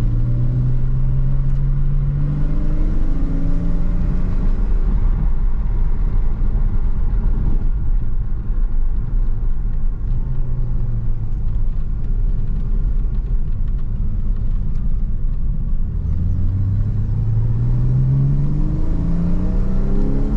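Porsche Cayman R's 3.4-litre flat-six heard from inside the cabin under acceleration over a steady low road rumble. The revs climb twice in the first few seconds and drop back, the engine note sinks into the rumble through the middle, then rises steadily over the last four seconds.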